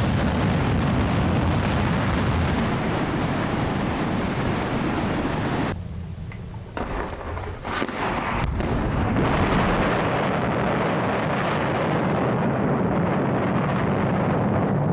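A mass of small firework rockets burning and going off together: a continuous, loud hissing crackle that thins out about six seconds in, with a few sharp pops, then builds back up.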